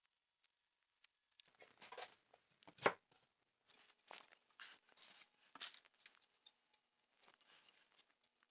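Bark-covered logs being handled and shifted on a wooden workbench: faint, irregular scraping and rustling of rough bark, with one sharp knock about three seconds in.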